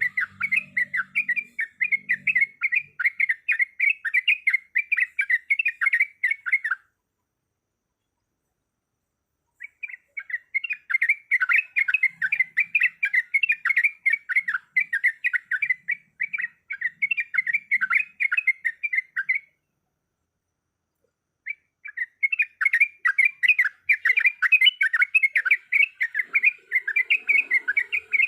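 Sooty-headed bulbul (trucuk) singing its rapid rolling 'ropel' song: fast, evenly repeated notes at about three or four a second. It comes in three long bouts, breaking off about 7 seconds in and again about 19 seconds in, each time resuming after a pause of two or three seconds.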